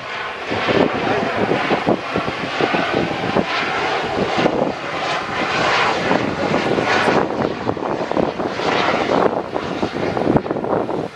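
Embraer E195 jet airliner on final approach, gear down, its two turbofan engines giving a steady rushing jet noise with a faint whine.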